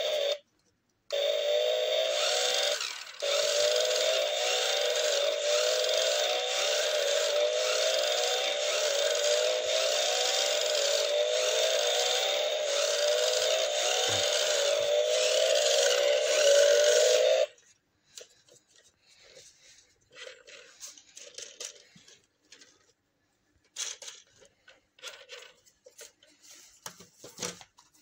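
RC spray-runner toy car's built-in electronic engine sound effect playing through its small speaker: a revving whine that rises in pitch again and again, broken twice near the start, then cut off suddenly a little past halfway. After it, only faint clicks of handling.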